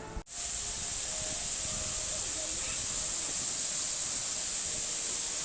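A steady hiss that starts abruptly about a quarter second in and stays even, strongest in the high range, with faint music or voices far underneath.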